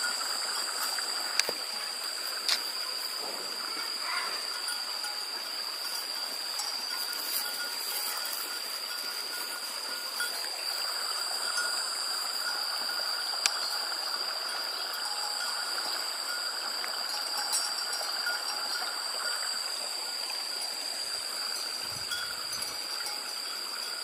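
Bells clinking faintly and irregularly over a steady high-pitched drone and a soft hiss, with a few sharp clicks.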